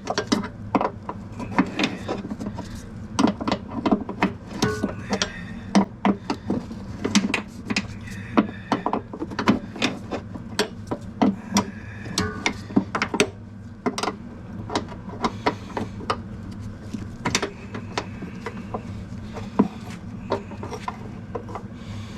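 A wrench working a brake hose fitting loose: a long run of irregular clicks and knocks of the tool against the fitting.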